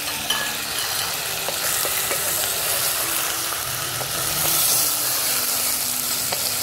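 Raw mutton pieces sizzling as they fry in hot ghee in a clay cooking pot, with a wooden spatula stirring and faintly clicking and scraping against the pot; the meat's own water is cooking off into the ghee.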